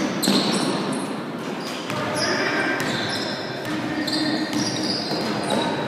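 Sneakers squeaking again and again on a sports-hall floor as basketball players run, over indistinct voices of players and spectators in an echoing hall.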